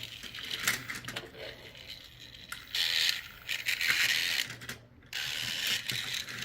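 Battery-powered toy vehicle's small geared motor whirring with a ratcheting clatter, first in short bursts, then running steadily from about five seconds in.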